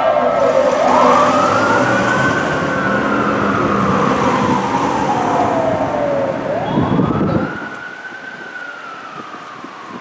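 Federal Q mechanical siren on a fire engine, winding up to a scream and slowly coasting down, twice. A burst of low rumbling comes about seven seconds in.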